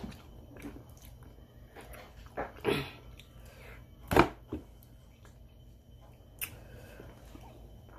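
Close-up eating sounds of sticky, sauce-glazed fried chicken being torn by hand and chewed: a few short, wet smacks and clicks, the loudest about four seconds in.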